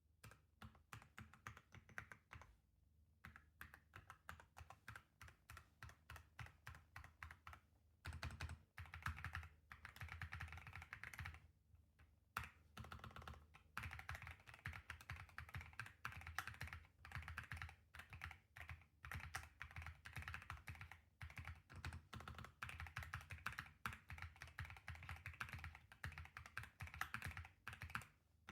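Typing on an Epomaker Hack 59 mechanical keyboard fitted with Flamingo switches. Separate, evenly spaced keystrokes at first, then fast continuous typing from about eight seconds in, broken by a few brief pauses.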